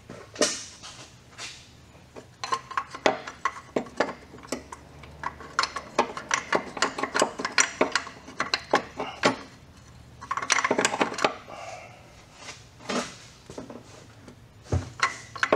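Water pump on a Toyota Corolla AE82 being wiggled and worked by hand against the engine block: many light metallic clinks and knocks, with a brief scraping rub about ten seconds in.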